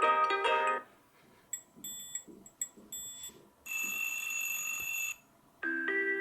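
Huawei P20 Pro's built-in alarm tones played one after another. A melody ends in the first second, then a few short, high chimes follow. A steady buzzing ring sounds for about a second and a half in the middle, and a new melodic tone starts near the end.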